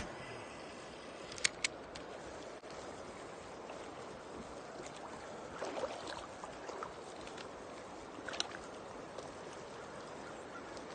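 River water running steadily, with a few short sharp clicks and knocks over it.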